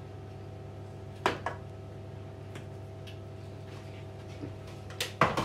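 Sharp taps and clinks against a stainless steel roasting tray as butter is placed on the fish: two about a second in, then a quick loud cluster near the end, over a steady hum.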